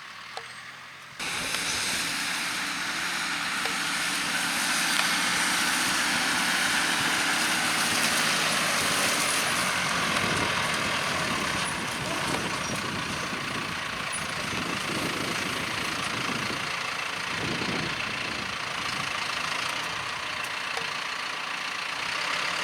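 Tractor engine running steadily, with the sound stepping up abruptly in loudness about a second in.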